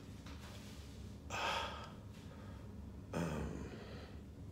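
A man's breathing: two short, heavy breaths about two seconds apart, gasps of pain from a fresh surgical wound.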